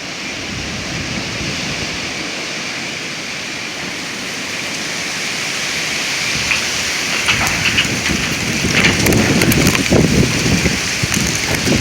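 Strong gale-force wind blowing, with a steady rush that builds and gusts harder from about halfway through, bringing crackling and rattling sounds.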